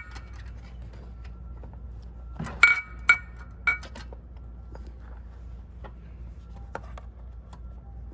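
Small metal parts of a spin bike's brake-knob assembly clinking as they are handled and fitted: a sharp clink at the start and a quick run of three or four ringing clinks a little over two seconds in, with faint ticks of handling between. A steady low hum sits underneath.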